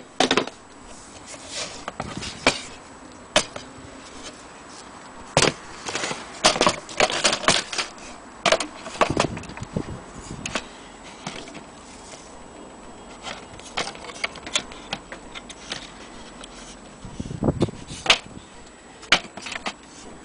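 Irregular knocks, clicks and clatter of an old wooden mantle clock case and its loose parts being handled and moved about on a table, some knocks sharp and loud.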